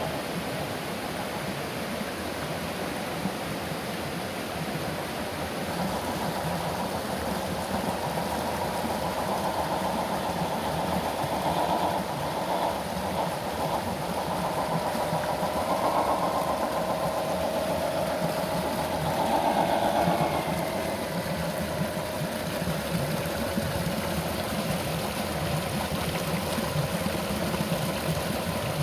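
Electric drive motor and gearbox of an MN-128 RC rock crawler whining, the pitch and level swelling and easing several times with the throttle, over a steady background hiss.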